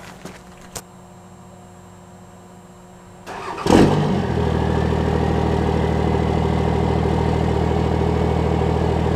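Pickup truck's engine starting up about three and a half seconds in, then idling steadily.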